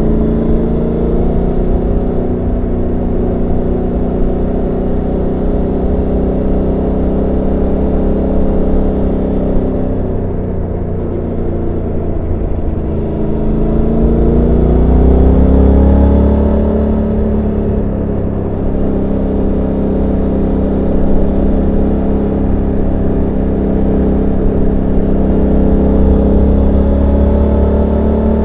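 Suzuki GSX-8S's 776 cc parallel-twin engine heard on board while riding. It runs steadily, eases off about ten seconds in, then pulls harder and climbs in pitch, loudest about fifteen seconds in, and rises gently again near the end.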